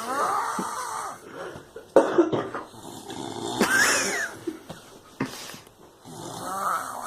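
Snoring: about four loud snores a second or two apart, some with a wavering pitch, and a short sharp noise between the last two.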